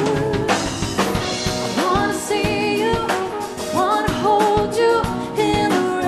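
Live band music: a singer's voice gliding through a wordless melodic line over a drum kit and sustained backing instruments.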